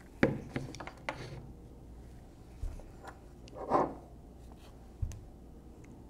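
Handling sounds on a tabletop: a hand-held electric hydraulic joystick and its cable set down with a few light clicks and knocks, then soft thumps and a brief rub as metal mounting brackets are picked up.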